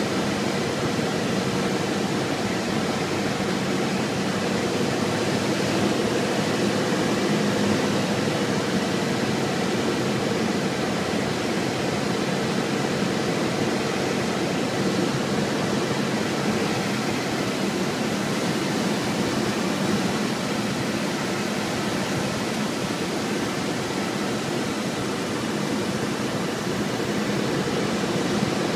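Single-engine piston airplane's engine and propeller, heard from inside the cockpit as a steady droning hum under a constant rush of air noise, on final approach to land.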